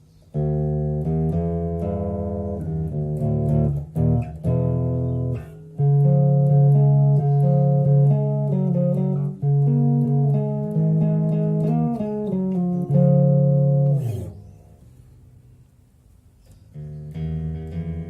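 Electric bass guitar played through a Fender Rumble LT25 bass combo amp: a run of plucked notes that stops about 14 seconds in and starts again near the end.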